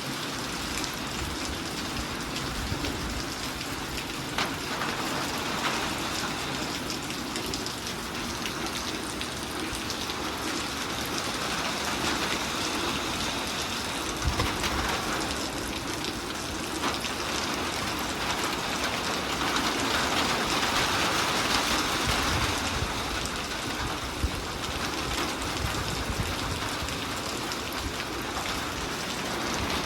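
Heavy rain from a summer storm falling steadily, swelling a little about two-thirds of the way through.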